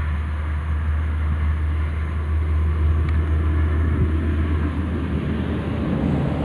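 Steady low rumble and hiss of road traffic on a toll road.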